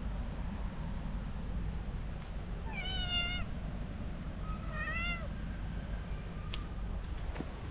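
Domestic cat meowing twice, two short meows about three and five seconds in.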